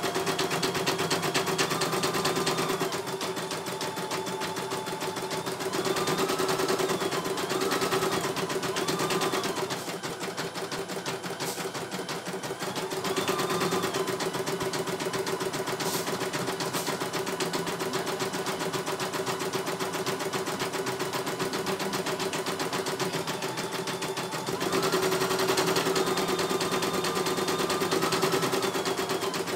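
CNY E900 computerized embroidery machine stitching a design: a fast, even rattle of needle strokes, with a motor whine that rises and falls in pitch and louder stretches that come and go.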